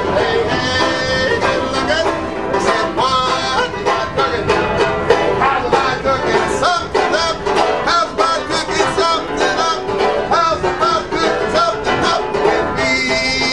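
Acoustic plucked-string music in a country or bluegrass style, with quick picked notes and a bending melody line. Near the end a steady droning tone with several pitches comes in.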